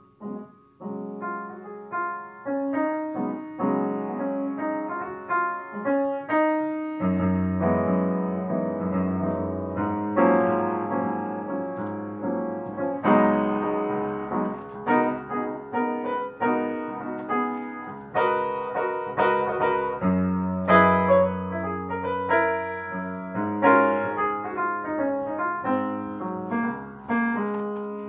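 Background piano music: a steady run of struck notes and chords, each note dying away.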